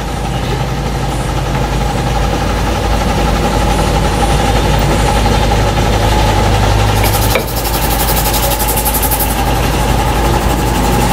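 An engine runs steadily with a continuous hum. About seven seconds in there is a single sharp knock, with a couple of seconds of fast high rattling around it.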